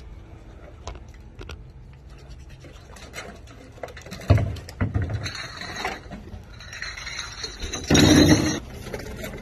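Recyclables being handled and shifted: irregular scraping and clattering, with a heavy knock about four seconds in and a loud rattling clatter about eight seconds in.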